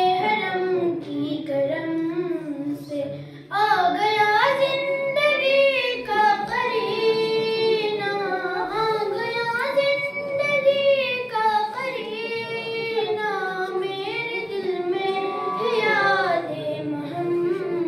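A young girl's solo voice singing an Urdu devotional manqabat with no instruments, in long, gliding melodic phrases, with a short breath pause about three seconds in.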